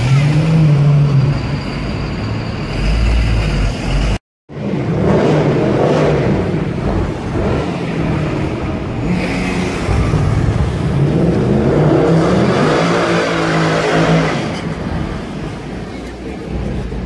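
Street traffic, then after a brief cut a sports car's engine revving and accelerating past close by. Its pitch rises and falls several times before fading near the end.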